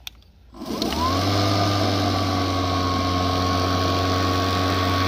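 Greenworks Pro 60-volt brushless 21-inch cordless lawn mower started at the push of a button: the motor and blade spin up with a quick rising whine about half a second in, then run at a steady hum.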